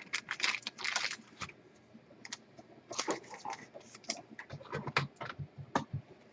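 Trading cards being handled on a table: an irregular flurry of small clicks, taps and rustles as cards are shuffled and set down.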